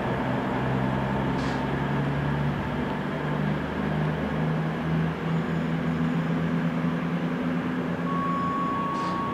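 Diesel locomotive hauling a loaded log freight train away, its engine running steadily with the note stepping up a little about two or three seconds in. A steady high tone sounds near the end.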